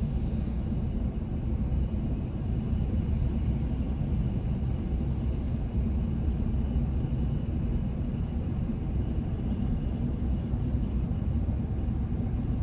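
Steady rumble of road and engine noise inside the cabin of a moving car.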